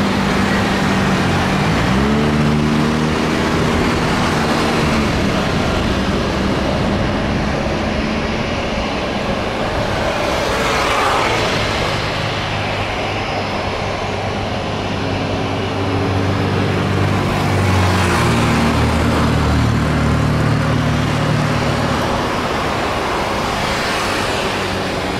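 Turbofan engines of a Boeing 737 freighter running at low power as it taxis: a steady jet rumble and whine with a low hum that shifts in pitch, swelling twice along the way.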